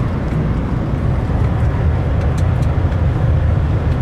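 DAF lorry on the move, heard inside the cab: a steady low engine drone mixed with tyre and road noise.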